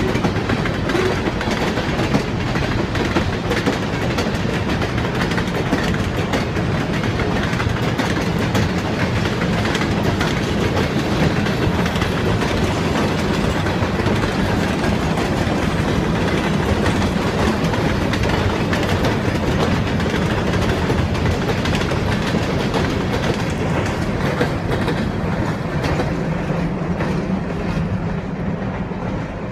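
Empty freight cars of a CSX train rolling past, their wheels clattering steadily on the rails. The noise eases off a little near the end.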